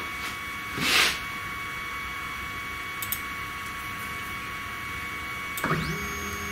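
Stepper motors of a 3018 desktop CNC router starting a slow jog, about 500 millimetres a minute: near the end a whine rises quickly and then holds steady at several pitches. Before that, only a faint steady electrical whine, a short rush of noise about a second in, and a few light clicks.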